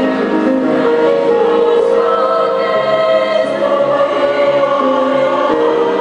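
A choir of mixed voices singing, several parts holding notes together in harmony and moving from chord to chord.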